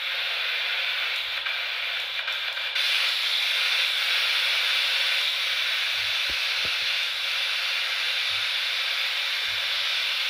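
Ghost-hunting spirit box sweeping through radio stations: a steady hiss of static that gets louder about three seconds in.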